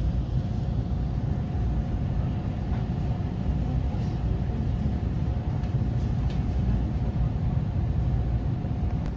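Steady low rumble of a train running, heard from on board, with a faint steady whine above it.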